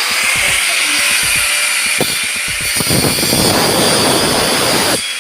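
Power tool cutting through the metal cable tray: a steady high whine with a grinding rasp that stops abruptly about five seconds in.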